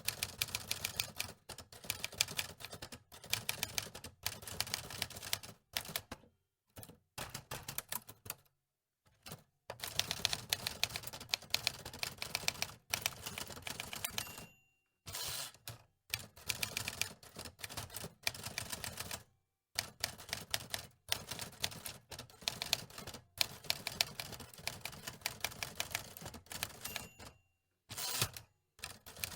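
Manual typewriter keys clacking in rapid runs of strikes, broken by short pauses between bursts of typing.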